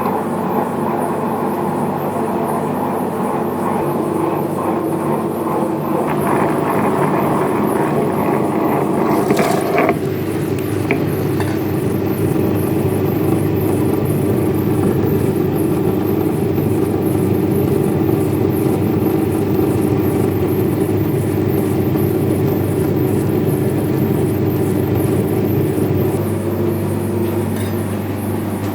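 A machine running steadily with a constant hum, its tone shifting lower and fuller about ten seconds in and easing slightly near the end.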